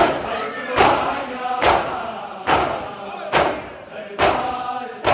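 A group of mourners doing matam: a loud unison chest-beating strike about once every second, with voices chanting in between the strikes.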